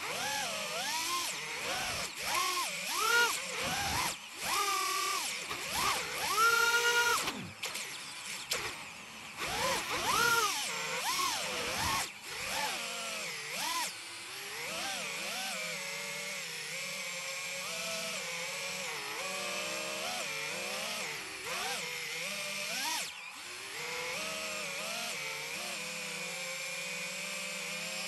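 Electric motors and 5-inch three-blade propellers of a 4S FPV quadcopter, heard from its onboard camera. For the first dozen seconds the whine rises and falls sharply in pitch with throttle punches. After that it settles into a steadier, lower hum.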